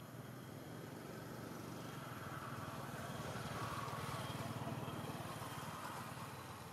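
A vehicle engine droning in the background, swelling to a peak about midway and fading again, like a vehicle passing by.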